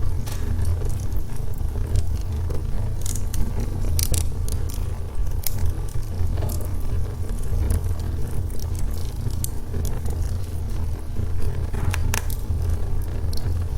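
Wood logs burning in a fireplace: a steady low rumble of the flames with scattered sharp crackles and pops.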